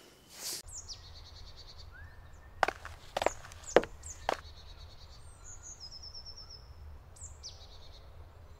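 Forest ambience: birds chirping over a low steady rumble, with four sharp knocks about half a second apart around three to four seconds in.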